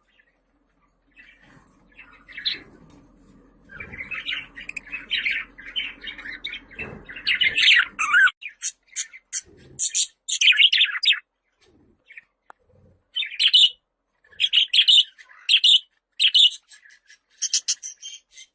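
Budgerigars chirping and chattering in quick runs of short, high calls, with a lull in the middle before bursts of sharp calls resume.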